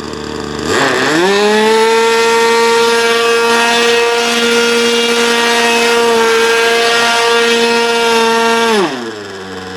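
Nitro glow two-stroke engine of an RC plane, fitted with a tuned pipe, run up from idle to full throttle about a second in, held there at a steady high pitch for about eight seconds, then throttled back to idle near the end.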